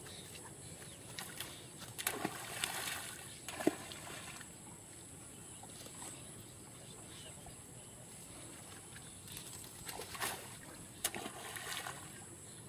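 Water splashing in short bursts as a seine net is drawn through a fish pond, with sharp splashes in two clusters, about two seconds in and again about ten seconds in.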